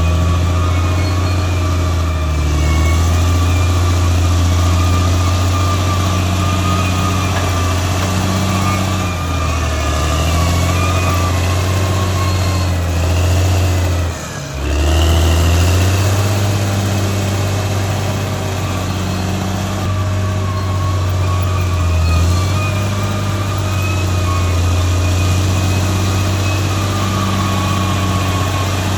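Caterpillar D6R XL bulldozer's diesel engine running under load. Its pitch sags and recovers several times and dips sharply about halfway through. A high whine sits over the engine for most of the time.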